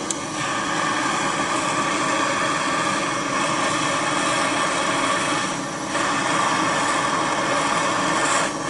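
Handheld gas torch on a canister burning with a steady hiss, its flame heating the broken end of a chainsaw starter's recoil spring so it can be bent into a hook without snapping. The hiss drops briefly about five and a half seconds in and again just before the end.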